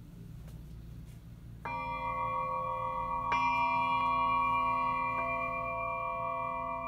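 A quartz crystal merkaba struck with a mallet, struck twice about a second and a half apart and then tapped lightly, ringing on in a bell-like chord of several clear, sustained tones.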